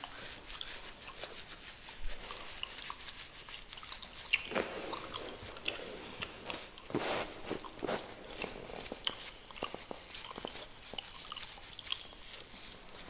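Fingernails scratching through beard hair: a dense, irregular crackle of fine clicks and scratches, with a few louder scraping strokes about four and seven seconds in.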